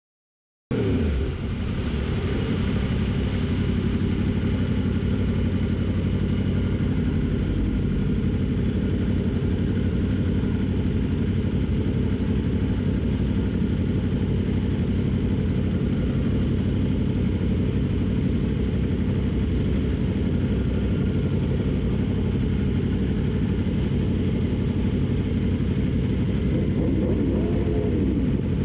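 Yamaha R1 sport bike's inline-four engine idling steadily, starting abruptly about a second in. Near the end the pitch briefly rises and falls, a light blip of the engine.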